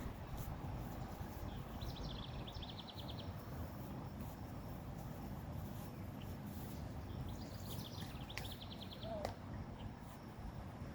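Outdoor background noise with a steady low rumble, and twice a small bird's short rapid high trill, about two seconds in and again past the middle.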